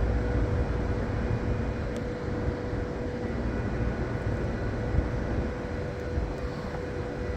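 Strong gusty wind of a near-blizzard buffeting the microphone, a steady low rumble with a faint steady hum running under it.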